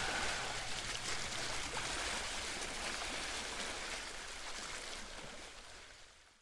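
Steady rushing-water ambience, like surf or a stream, fading out to silence near the end.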